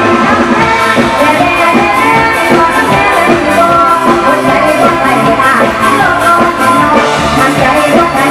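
Live Thai Isan luk thung band music, loud and continuous, with a steady drum beat and a melody line.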